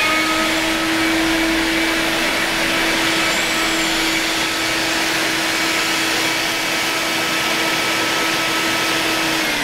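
Delphin water-filter vacuum cleaner running, a steady rush of air with a constant motor whine over it. Right at the end the whine cuts out and starts to fall away as the motor is switched off.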